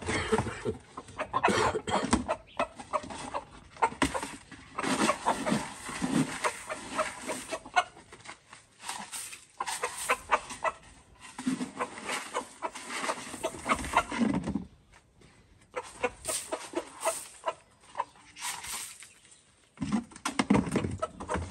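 A flock of chickens clucking in busy bursts, with a few short lulls.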